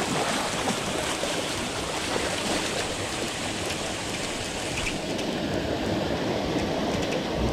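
Steady rush of splashing water from a pond aerator's spray, with a hooked grouper thrashing at the surface by the landing net.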